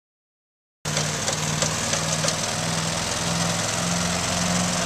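Craftsman riding lawn mower's engine running steadily while mowing tall grass, starting abruptly about a second in.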